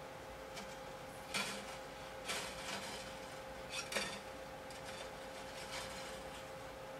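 Slack steel strings of a Yamaha FG-251 acoustic guitar scraping and rattling as they are loosened and pulled off. There are three short bursts, about one and a half, two and a half and four seconds in.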